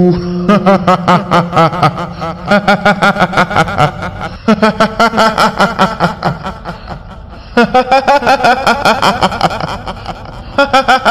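A kuntilanak ghost laugh: a voice cackling 'hihihi' in quick repeated pulses, in several runs of about two seconds each with short breaks between them.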